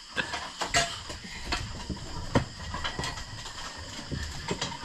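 Dishes and cutlery clattering during a meal: irregular light clicks and knocks of utensils on plates.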